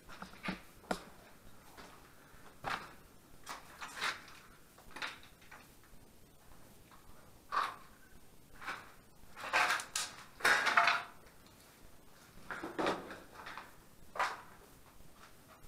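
Irregular knocks, scrapes and crunches, a few at a time with short gaps between them, the loudest cluster about ten seconds in.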